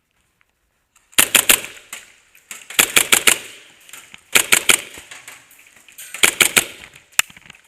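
KWA MP9R gas blowback airsoft machine pistol firing four short bursts of a few rapid shots each, starting about a second in, then one single shot near the end.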